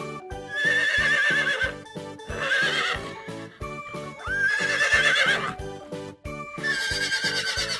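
A horse whinnying four times, each a wavering, shrill call, over background music with a steady beat.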